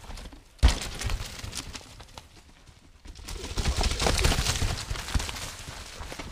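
Downhill mountain bike riding rough trail: a sharp thump less than a second in as the bike lands, then tyres rolling and clattering over rocks and dirt. The clatter is loudest around the middle as the bike passes close.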